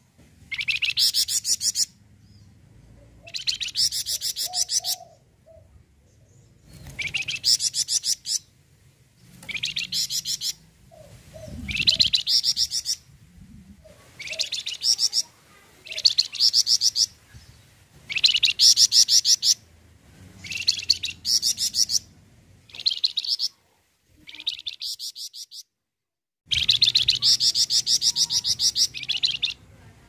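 Caged flamboyan songbird singing in full, energetic song ('full brenn'): a string of rapid, high trilling phrases, each about a second long, repeated every couple of seconds with short pauses between.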